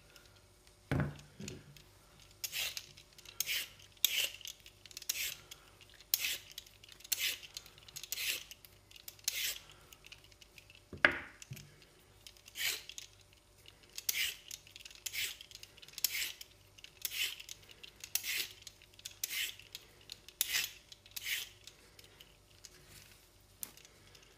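Y-shaped vegetable peeler scraping down a raw carrot in short rasping strokes, about one a second, stopping near the end. A knock about a second in and a louder knock near the middle, the loudest sound.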